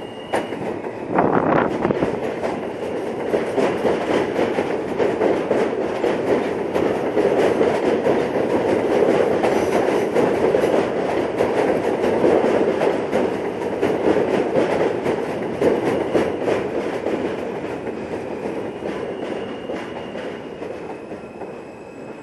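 An R160-series subway train passes close by on elevated steel track: a loud steady rumble of wheels on rail with rapid clicking of the rail joints. It swells sharply about a second and a half in, then slowly fades as the last cars pull away, with a faint wheel squeal near the end.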